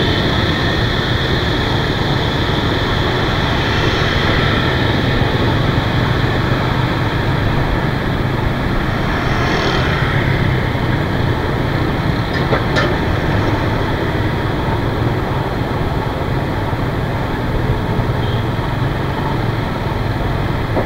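Motor scooter riding through city traffic: its engine and the surrounding road noise make a steady, unbroken din, with one short click a little past halfway.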